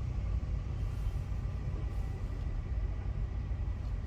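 Car engine running with a steady low rumble, heard from inside the cabin.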